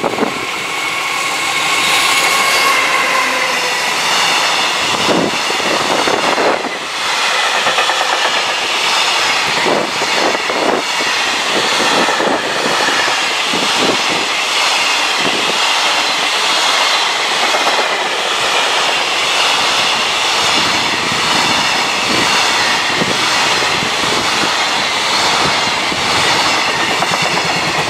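A JR Freight EF210 electric locomotive passes close by, followed by a long train of container wagons rolling past. It makes a steady loud rumble, with the wheels clacking repeatedly over the rail joints.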